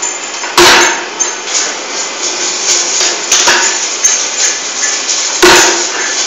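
Envelope cutting machine running: a continuous metallic clatter, with two heavy strokes, one about half a second in and one near the end, and a few lighter knocks between.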